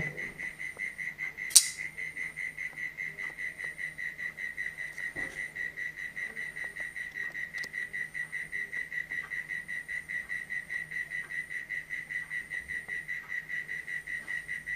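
Titanium-handled flipper folding knife on ball bearings snapping open with a single sharp click about a second and a half in as the blade swings out and locks. Behind it, a steady, rapidly pulsing high trill.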